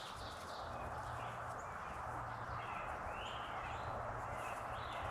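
Outdoor ambience: a steady hiss with a few short bird calls, the clearest about halfway through.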